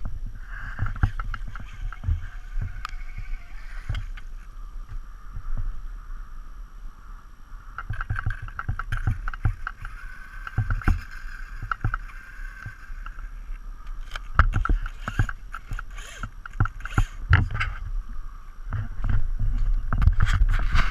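Radio-controlled truck running on its brushless motor: a high whine that comes and goes, with many sharp clicks and knocks and a low rumble underneath.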